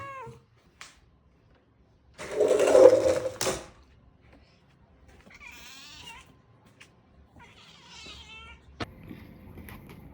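A domestic cat meowing twice, short calls a few seconds apart, after a loud rustling noise lasting about a second and a half; a sharp click near the end.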